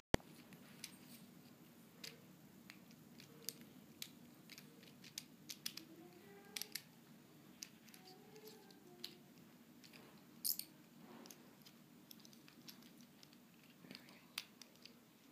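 Faint scattered clicks and taps of small parts of a souvenir model tower being handled and taken apart, with one sharp click at the very start and another about ten seconds in.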